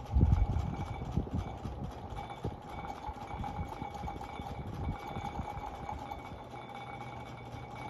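Seasons Cabrillo ceiling fan running on high speed, with a steady tone and irregular knocking and rattling, loudest about the first half second: the fan is loose and wobbly.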